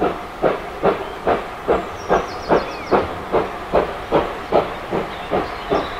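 Steam locomotive running under steam: a steady beat of exhaust chuffs, about two and a half a second, over a continuous hiss of steam.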